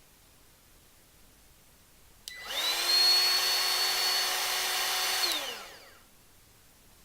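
Ryobi One+ 18V cordless trim router switched on with a click and run briefly with no load, its motor spinning up to a steady high whine. After about three seconds it is switched off and the motor winds down in falling pitch.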